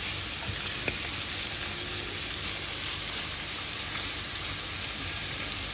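Diced pork and chopped onion sizzling steadily in oil in a frying pan as they are stirred with a silicone spatula.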